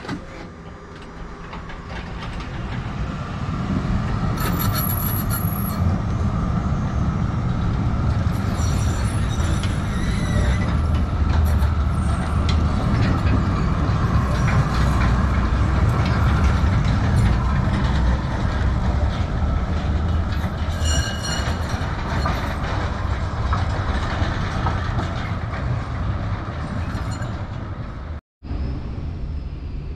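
A tram rolls past with a loud, steady rumble from its wheels. High-pitched wheel squeal comes and goes several times as the wheels run through the curved depot track.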